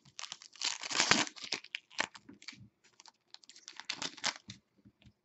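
Plastic wrapper of a trading-card pack crinkling as it is handled and torn open, a dense crackle loudest about a second in and again near four seconds.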